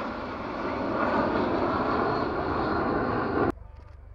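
Jet aircraft flying over in formation, a large multi-engine jet with two fighter jets, their engine noise loud and steady; it cuts off abruptly near the end, leaving a much quieter background.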